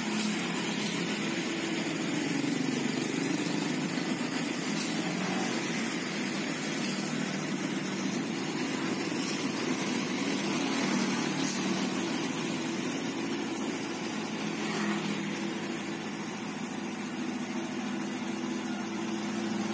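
Diesel engines of heavy road-construction machinery running steadily at a low, even drone.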